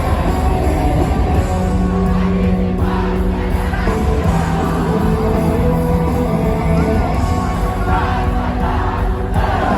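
Live rock band playing loudly, with held sung notes over guitars and drums and a crowd shouting and singing along.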